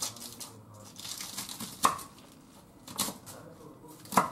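Kitchen knife slicing through cabbage leaves on a wooden cutting board. There is a crunching rustle as the blade goes through, and four sharp knocks as it hits the board.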